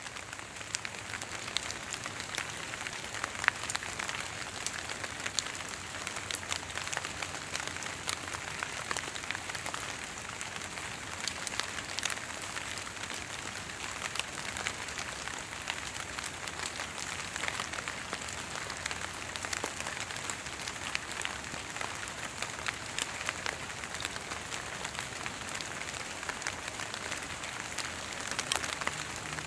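Water drops falling from tall trees onto the leaves and foliage below, a steady patter of many irregular taps like light rain. The drops are fog drip: condensed fog running off the needles and leaves, with no rain falling.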